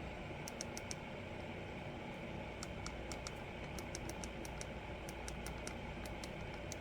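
Steady background hiss and low hum with faint, irregular light clicks, several a second, in scattered clusters.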